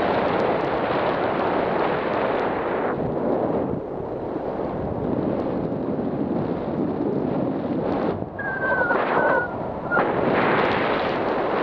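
Airflow of flight buffeting the camera's microphone in a loud, rushing wind noise that eases for a moment about three seconds in. A few brief high whistle-like tones sound about eight seconds in.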